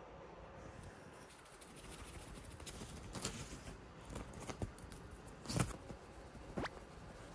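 A few scattered light taps and knocks, the loudest a dull thump about five and a half seconds in.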